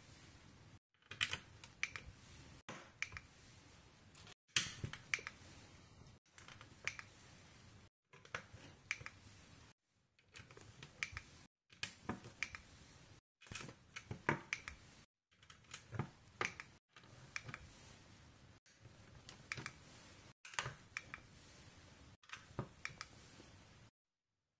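Dark grey LEGO pieces being pressed onto the studs of a tan baseplate, snapping into place with sharp plastic clicks. The clicks come in short runs every second or two, broken by abrupt brief silences.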